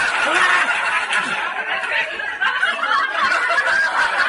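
Continuous laughter from several voices at once, without a break.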